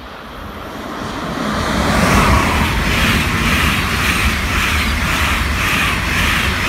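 Locomotive-hauled passenger train passing through on the main line. The rush of wheels and air builds as the red electric locomotive comes near. Then the České dráhy coaches run by with a steady rush and a regular beat from their wheelsets, about two a second.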